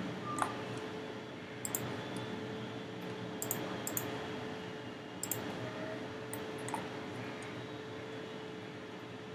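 About seven scattered clicks of a computer mouse over a steady background hiss with a faint constant hum.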